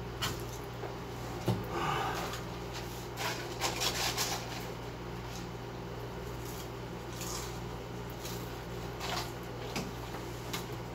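Eating French fries: chewing and the paper fry carton crinkling in short, scattered bursts, busiest a few seconds in, over a steady low hum.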